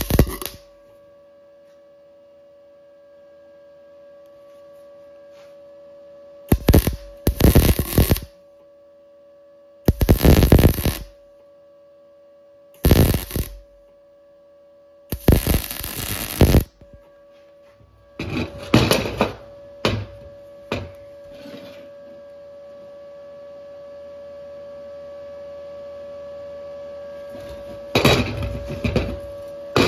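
MIG welding arc crackling in about six short bursts of one to two seconds each as welds are laid on steel tubing with an Arc Captain MIG 200 inverter welder. Between the bursts there is a steady electrical hum.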